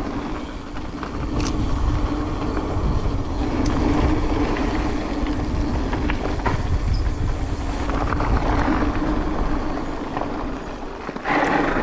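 Rolling rumble and wind noise of a ride down a downhill trail, with a steady low hum and scattered rattles and knocks. The noise swells for a moment near the end.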